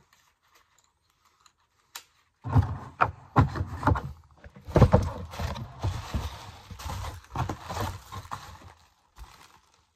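A clear plastic zip-top bag rustling and crinkling close to the microphone, with irregular handling knocks, starting about two and a half seconds in after a single click.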